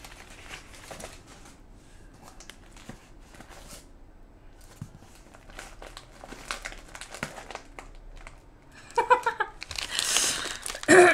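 Packaging being unwrapped by hand: scattered small crinkles and rustles, then a louder stretch of crinkling and tearing near the end.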